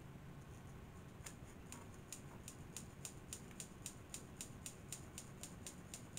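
Faint, light high-pitched clicking, about four clicks a second, starting about a second in.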